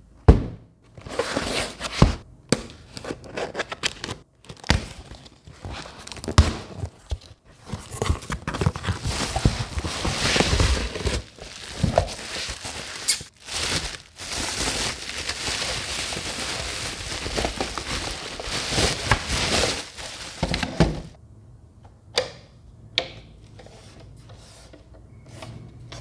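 Unboxing handling: a cardboard box being opened and a plastic bubble-wrap bag crinkling and tearing as a mini air cooler is pulled out and unwrapped, with knocks and thunks of the box and unit being handled. The crinkling stops about 21 s in, followed by a few sharp clicks and taps as the unit is placed.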